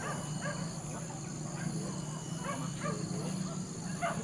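Hunting dogs barking and yelping in short, repeated calls, over a steady high-pitched drone.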